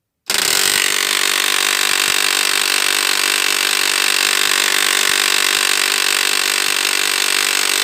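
HP LaserJet P1108 laser printer making its faulty noise after being switched on: a loud, steady mechanical noise that starts abruptly and cuts off suddenly near the end. This is the abnormal sound problem the printer is being repaired for.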